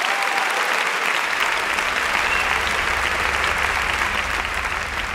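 Audience applauding, dense steady clapping that eases slightly near the end.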